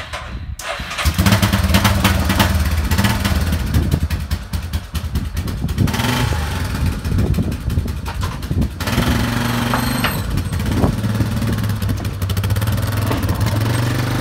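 Yamaha ATV engine starting up about half a second in, then running with the throttle rising and falling as the quad is backed out of an enclosed trailer.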